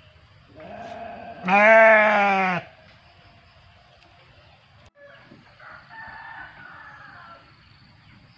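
A goat bleats loudly once for about a second, a softer call leading into it. The goat is held down with its legs tied for slaughter, and the call is its bleat of distress.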